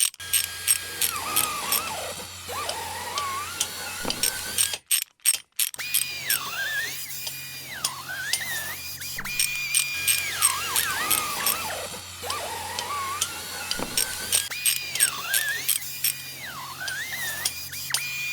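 Background electronic music with a steady ticking beat, a bass line that changes note every few seconds and a sliding synth melody that repeats. It drops out briefly about five seconds in.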